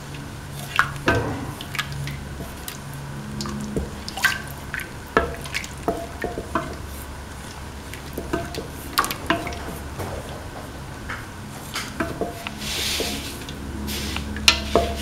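A ladle stirring beaten rice flakes in coconut milk in a metal pan: irregular clinks and scrapes of the ladle against the pan with liquid sloshing, over a low steady hum.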